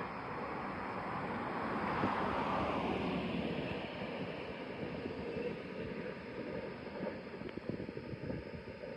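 Freight train rolling past on the track, wheels on rail. The rumble swells to its loudest about two seconds in, then fades steadily as the train draws away.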